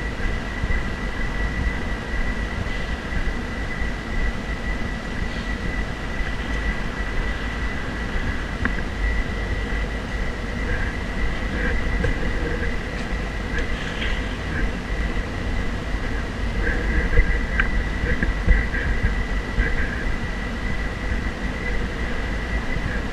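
Steady low rumble of outdoor ambience and wind on the microphone of a walking, gimbal-mounted action camera, with a constant thin high whine.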